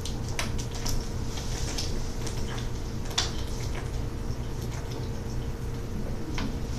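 Quiet room tone: a steady low hum with a faint steady tone over it, and a few scattered faint clicks and ticks.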